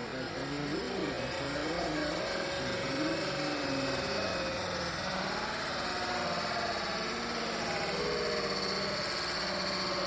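Radio-controlled Caterpillar D11T model bulldozer running steadily with a machine-like drone, over which a whine rises and falls in pitch.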